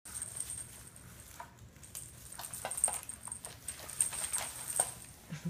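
A cat batting and pouncing at a crinkly shiny toy attachment on a hardwood floor: irregular light clicks and rustles, over a thin steady high whine.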